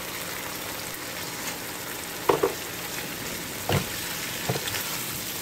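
Thick chili shrimp-paste mixture sizzling as it fries in a wok while a wooden spatula stirs it, with a few short knocks of the spatula about two, three and a half and four and a half seconds in.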